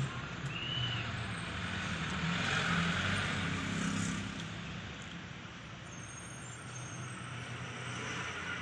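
Truck engine and road noise heard from inside the cab while driving on a highway: a steady low engine hum under the rush of tyres and wind. It grows louder a few seconds in and eases off in the second half.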